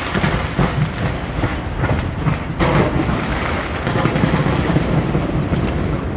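Fireworks going off in quick succession: a dense run of crackles and pops over a steady rumble.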